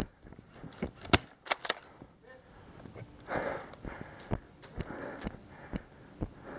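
Airsoft gunfire: several sharp cracks, the loudest about a second in and two more about half a second later, among scattered lighter knocks of footsteps and BB hits.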